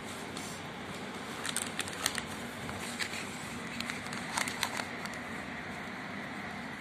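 Paper rustling with a few short clicks as a notebook is handled and laid open over a textbook, in two short clusters about a second and a half in and again after four seconds, over a steady background hum.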